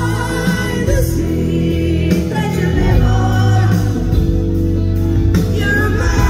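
Live band playing a loud pop song with a lead singer's vocals, heard through the venue's PA from within the crowd.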